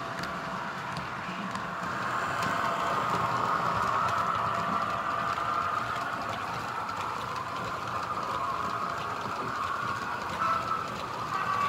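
H0-scale model trains running on the layout's track: a steady rolling hum of wheels and motors, with faint clicks as wheels pass rail joints and points.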